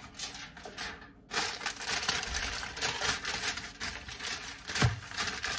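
Aluminium foil crinkling and crackling as a sheet is laid over a glass baking dish and pressed down and crimped around its edges by hand. There is one dull knock near the end.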